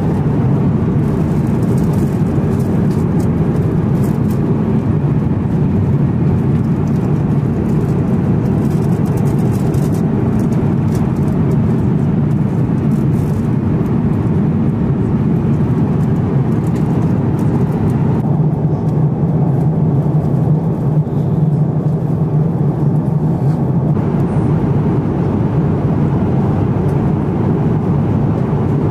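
Steady cabin noise of an Airbus A350-900 airliner in flight: an even, loud rush of airflow and engine noise, strongest low down. The higher hiss thins for several seconds past the middle.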